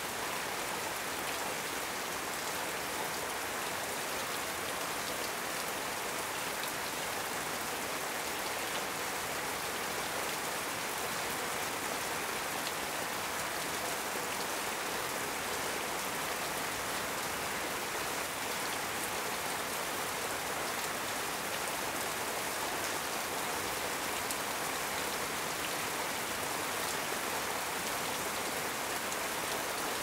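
Heavy rain falling steadily on corrugated metal roof sheets, an even, unbroken patter with no thunder.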